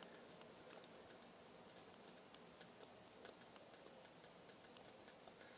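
Near silence broken by faint, irregular light ticks of a pen tapping and clicking on a drawing tablet as characters are handwritten. The ticks come in a cluster in the first second and another through the middle, with one more near the end.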